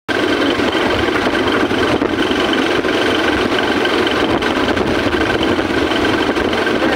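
Steady engine and road noise heard from inside a moving vehicle, with a faint steady whine over the rumble.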